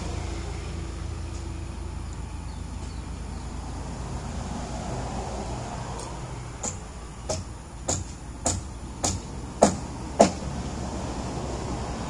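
Hammer blows on a nail being driven into wooden fence lumber: seven strikes a little under two a second, beginning about halfway through and growing louder, the last two loudest and ringing. A steady low rumble underneath.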